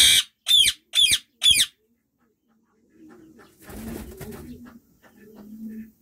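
Rose-ringed parakeets calling: four loud, high calls in quick succession, about half a second apart, in the first second and a half. After a short pause, softer low calls and a brief rustle follow.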